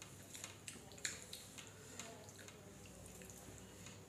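Faint eating sounds: scattered soft clicks as biryani rice is mixed by hand on steel plates, with a sharper click about a second in.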